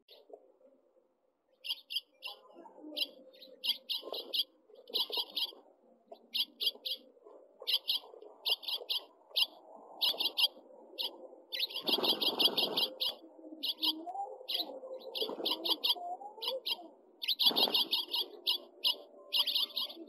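Young house finches chirping in quick runs of short, high notes, starting about two seconds in and going on throughout. Under the chirps are wing flutters and rustling in the nest, loudest about twelve seconds in and again near the end.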